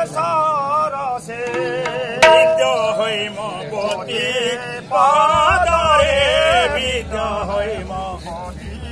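A man sings a devotional folk song in a high voice with heavy vibrato, phrase after phrase. A single sharp strike about two seconds in is the loudest sound.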